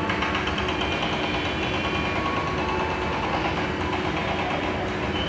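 Diesel locomotive engine running steadily at idle, a constant rumble with a faint hum.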